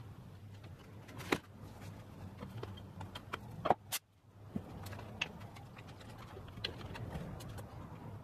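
Light clicks and knocks of small wooden pieces being handled and set against a wooden panel on a workbench, the sharpest two about one and a half and three and a half seconds in, over a faint steady hum.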